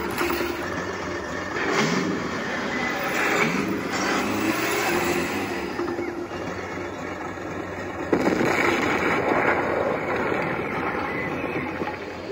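Simulated Tiger I tank engine sound from an Elmod Fusion Pro sound unit in an RC tank model, played through the model's speaker. The engine runs steadily and revs up in rising sweeps as the tank drives, with a sudden louder rush of noise about eight seconds in.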